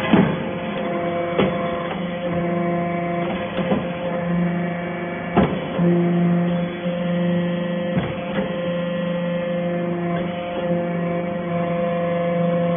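Hydraulic metal-chip briquetting press running: a steady hum from its hydraulic power unit, with a sharp knock every couple of seconds as the press cycles and briquettes are pushed out.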